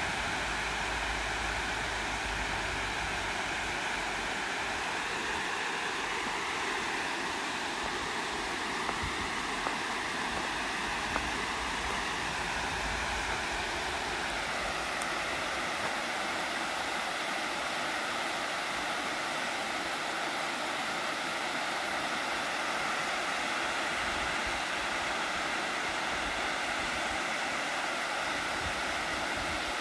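Water overflowing a masonry dam's spillway, a steady rushing sound whose tone shifts a little about halfway through.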